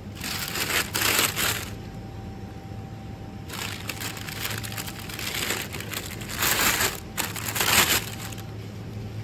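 Three bursts of rustling, crinkling noise over a steady low hum.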